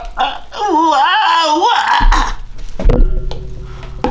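A high, wavering laugh lasting about a second, its pitch wobbling up and down, followed by a low, steady hum.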